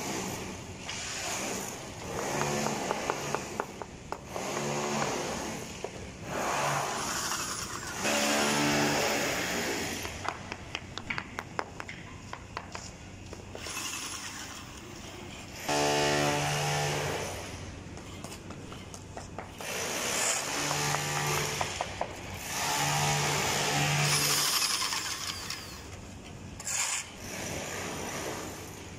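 Electric high-pressure epoxy injection pump running in spells, its motor hum rising and falling in pitch as it pushes resin into the crack ports, with stretches of rapid clicking between spells.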